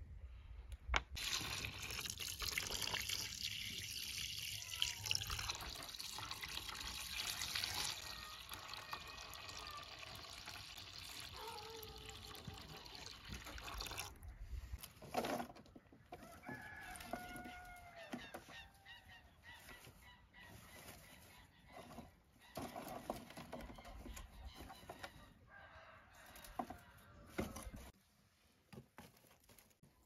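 Water running steadily for about thirteen seconds, then cutting off sharply, followed by scattered knocks and handling noises. Poultry calls come through in short curved cries.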